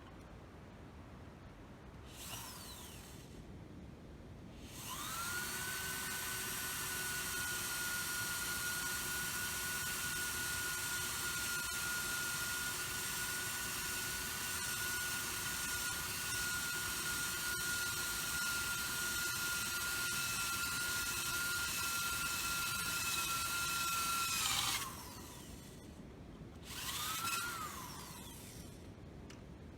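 Deko DKSD400W cordless drill-driver drilling into metal: a short blip of the motor about two seconds in, then a steady high motor whine for about twenty seconds that winds down when released. There is another brief burst of the motor near the end.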